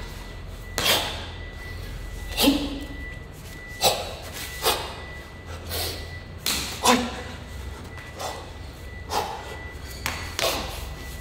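Kung fu practitioner performing a monkey fist form: about a dozen sharp slaps and thuds from strikes and footwork on a tiled floor, spaced irregularly and echoing in a large hall.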